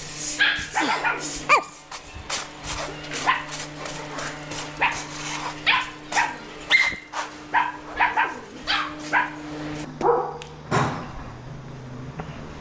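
A dog barking repeatedly, a couple of short barks a second, stopping about eleven seconds in, over a steady low hum.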